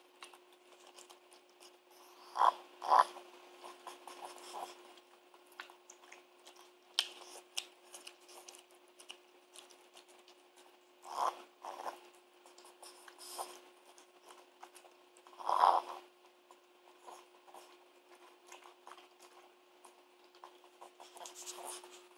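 Small dog eating from a ceramic bowl: soft chewing and smacking clicks throughout, broken by a few short pig-like grunts, two close together about two seconds in and the loudest about fifteen seconds in.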